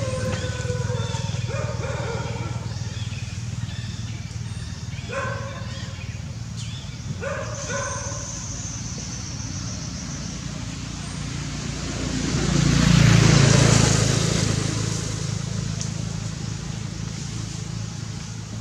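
A motor vehicle engine running with a steady low hum, swelling to its loudest about twelve to fourteen seconds in as it passes close by. A few short voice-like calls come in the first eight seconds.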